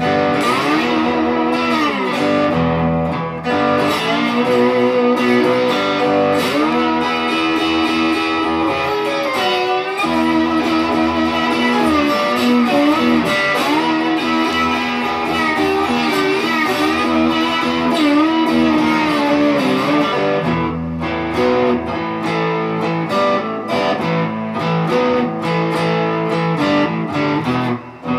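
A red Squier Stratocaster electric guitar playing a slow blues instrumental break, with many notes gliding up and down in pitch.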